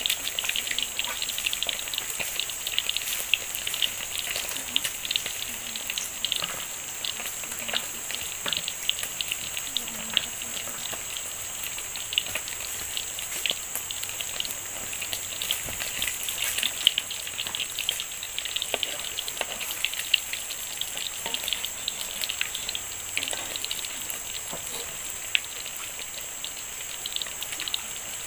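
Forest riverside ambience: a steady high insect-like drone over rushing water, with many scattered small crackles and clicks.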